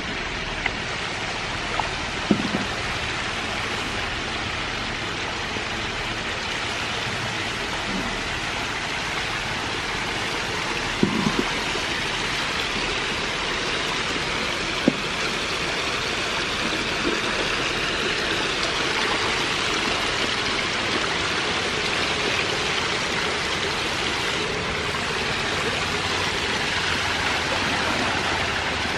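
Steady rush of water pouring and splashing into a shallow tank crowded with catfish fry, with a few brief splashes or knocks.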